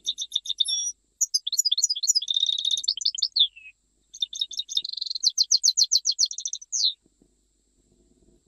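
European goldfinch singing: three phrases of fast, high twittering trills with short breaks between them. The song stops about a second and a half before the end.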